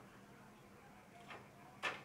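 Two faint clicks over a quiet room background, the second, sharper and louder, near the end.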